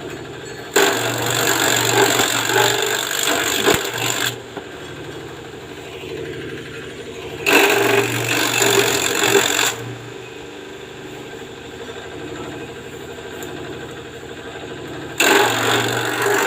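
A simple grass chopper's motor running steadily, with three loud spells of chopping noise, each lasting two to three and a half seconds, as grass is fed into the blades.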